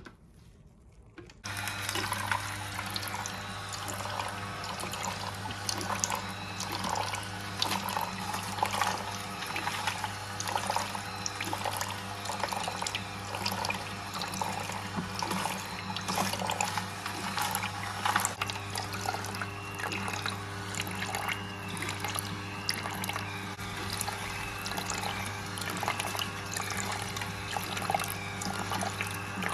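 Slow juicer starting about a second and a half in and running with a steady motor hum, its auger crushing the ginger and lemon with a dense crackling as juice runs out.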